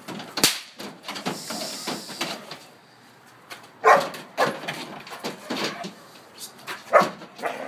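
Protection dog barking in short bursts from the back of a truck bed while being agitated, with loud barks about four seconds in and again near the end. A single sharp crack sounds about half a second in.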